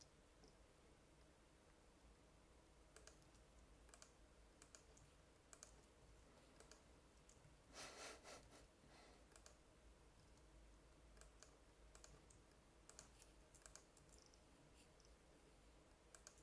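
Faint, scattered clicks of a computer mouse and keyboard during score editing, with a short flurry of them about halfway through.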